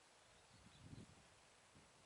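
Near silence: a quiet outdoor background with a brief faint low rumble about a second in.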